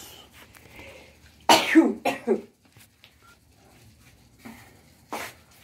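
A man coughing: a loud cluster of two or three coughs about a second and a half in, and one more short burst near the end.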